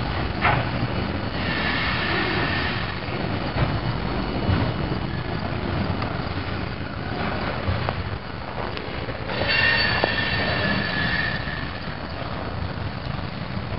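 CSX freight cars rolling past on curved track, steel wheels rumbling and clicking over the rail. A high squeal comes twice: once early in the passage and again about two-thirds of the way through.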